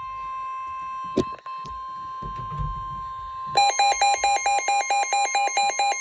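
Emergency alert tones for a tornado warning: a steady high alert tone with a click about a second in, then about halfway through a loud electronic alarm starts beeping in quick even pulses, about four a second.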